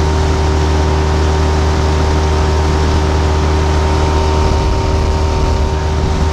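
Outboard motor on an inflatable dinghy running at a steady speed, a constant drone that does not change pitch.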